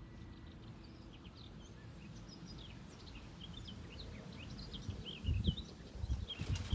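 Small birds chirping and twittering, many short, quick calls over a faint background hum, with a few low thumps near the end.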